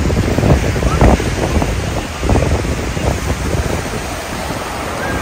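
Surf breaking and washing up a sandy beach, with wind buffeting the microphone in low gusts during the first three seconds.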